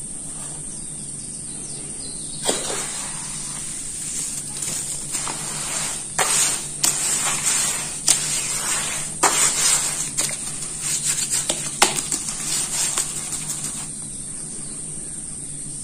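Hands squishing and raking through wet red dirt and cement slurry: irregular wet squelches and slaps, beginning about two and a half seconds in and dying away shortly before the end.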